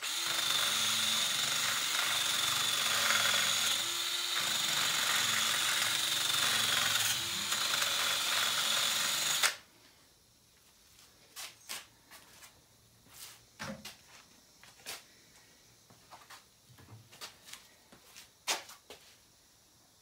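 Cordless drill spinning a non-wire abrasive brush inside an aluminum wheel's hub bore, scuffing off corrosion, with a steady high whine; it runs for about nine and a half seconds and then stops suddenly. After that come a few light knocks and clicks.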